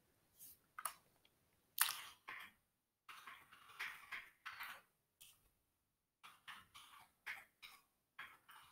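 Computer keyboard typing: quiet, irregular keystroke clicks in short runs with pauses between them.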